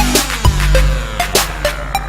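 Electronic background music with heavy bass, drum-machine hits and falling synth sweeps.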